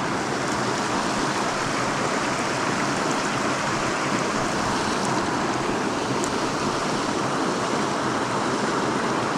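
A canyon trout stream rushing steadily: an even wash of running water.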